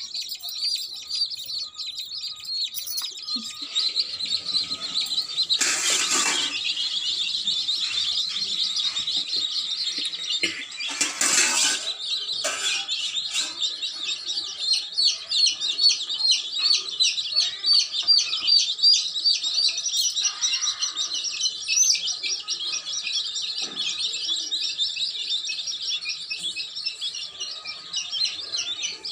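Baby chicks peeping continuously in rapid, high chirps, with two brief bursts of rustling noise about six and eleven seconds in.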